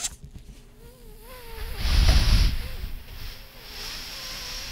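Air let out of a latex balloon through its stretched neck, making a thin wavering squeal, with a loud rush of air for about half a second about two seconds in.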